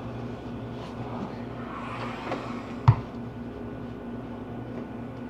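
Household steam iron sliding and scuffing over trouser fabric on an ironing board, then one sharp knock about three seconds in as the iron is set down. A steady low hum runs underneath.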